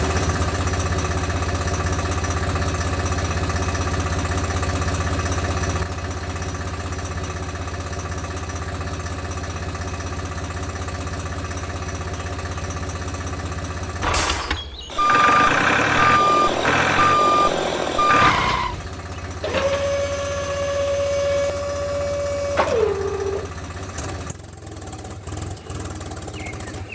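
An engine running steadily for about fourteen seconds, then after a sudden break three short high beeps and a longer, lower steady tone that slides down at its end.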